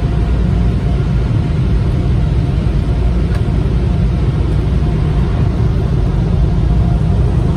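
Automatic car-wash tunnel noise heard from inside the car at the tunnel exit: a loud, steady, deep rumble with a hissing wash over it.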